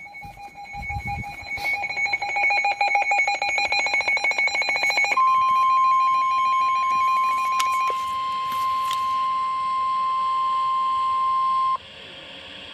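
Emergency alert tones for a flash flood warning. First comes rapid pulsing two-pitch electronic beeping for about five seconds, then a steady single-pitch alert tone, the NOAA Weather Radio warning alarm tone, held for about six and a half seconds. It cuts off suddenly, leaving faint radio hiss.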